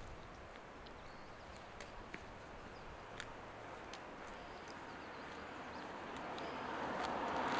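Running water of a small creek, a steady rushing that grows gradually louder, with a few faint scattered ticks.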